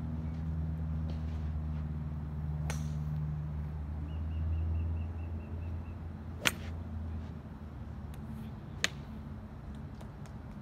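Sharp clicks of golf clubs striking balls at a driving range: a loud one about two-thirds of the way in and another a couple of seconds later, with a fainter one earlier. Under them a low steady hum fades out.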